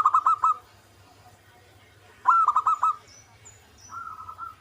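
Zebra dove (perkutut) singing: two loud cooing phrases of quick, rapidly repeated notes, about two seconds apart, then a fainter phrase near the end.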